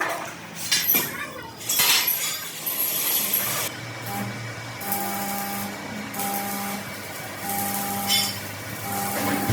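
Metalworking in a fabrication shop: metal clinking and knocking for the first few seconds, then an electric machine humming, with a higher tone that switches on and off in runs of about a second.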